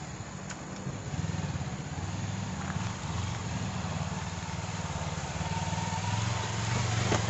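Kawasaki Versys 250's parallel-twin engine running at low speed as the motorcycle is ridden slowly, with a steady hiss over it, growing a little louder near the end.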